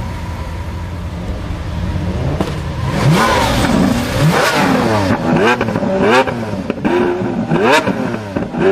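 Lamborghini Aventador Roadster's 6.5-litre V12 idling steadily at about 1,000 rpm, then revved in about five quick blips from about three seconds in, each rising and falling sharply. A few sharp cracks come between the blips.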